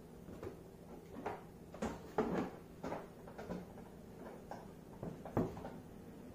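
Plastic disc golf discs being handled and shuffled in a cardboard shipping box: a run of light clacks and rustles, with the sharpest knock about five seconds in.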